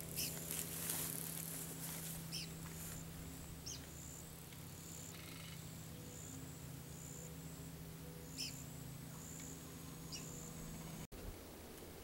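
Faint outdoor ambience: a high short chirp repeating roughly once a second, with a few brief bird chirps now and then and a steady low hum underneath.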